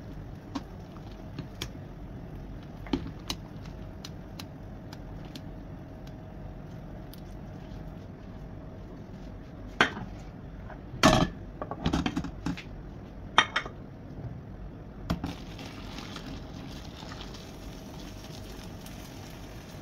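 Metal cooking pot and utensils clinking and clanking on a stovetop, with a cluster of loud clanks in the middle. Near the end, hot water is poured from a kettle into the pot, an even splashing hiss.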